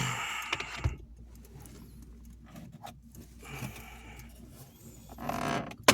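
Plastic dashboard trim around the heater controls being pried and worked loose with a flathead screwdriver: scraping and rubbing of plastic in three short spells, with a sharp click near the end.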